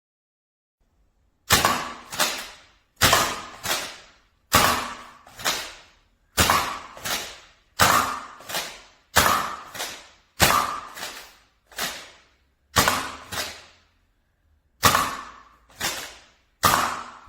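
A toy bow and foam-tipped arrows shot over and over: about eleven pairs of sharp slapping snaps, each pair two quick cracks about half a second apart, a pair every second and a half or so.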